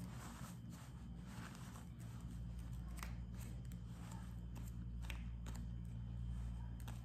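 Metal spoon stirring thick banana cake batter in a plastic tub: soft wet scraping with a few sharp clicks of the spoon against the sides, over a steady low hum.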